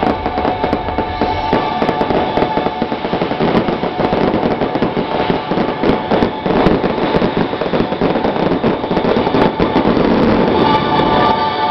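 Fireworks going off in quick succession, a dense crackling of many bursts, over a music soundtrack; the music comes through more clearly near the end.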